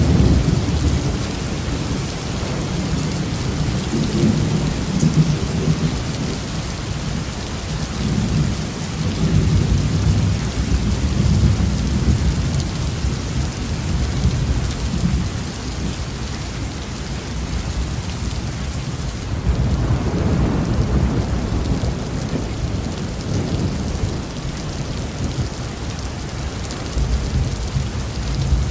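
Heavy rain falling in a steady hiss, with low thunder rolling through it in several long rumbles that swell and fade.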